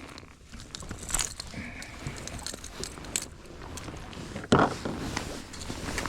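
Handling noises on a fishing boat: scattered light clicks and knocks, with one loud thump about four and a half seconds in.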